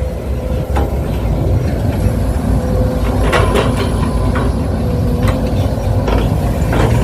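Excavator running steadily with a constant whine, while its bucket loads soil, giving scattered short knocks and scrapes.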